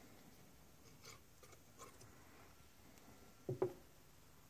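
Quiet workbench handling noise: faint small clicks, then two quick knocks close together about three and a half seconds in, as hydraulic valve parts are handled and set down.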